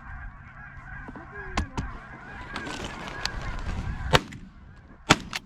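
Geese honking in a steady clamour, then two loud shotgun blasts about a second apart near the end, taking a pair of incoming geese.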